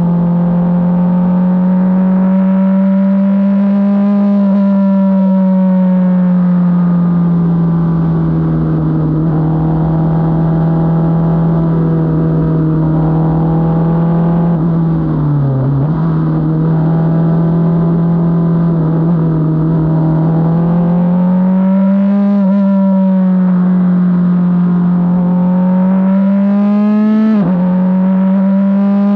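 Formula 4 race car's engine, heard onboard, running hard at fairly steady revs that rise and fall gently as it laps. The pitch sags briefly about halfway, then drops sharply and jumps back up near the end.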